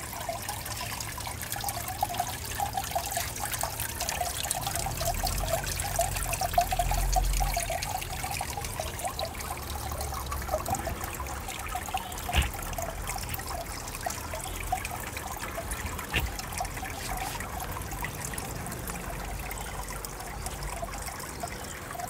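Small tiered garden waterfall trickling and splashing steadily into a koi pond. A low rumble joins in for a few seconds about five seconds in.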